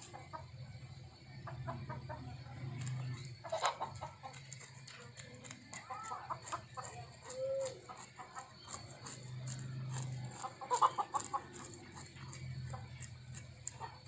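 Chickens clucking, with a knife blade scraping scales off a fish on a wooden block in short, regular strokes.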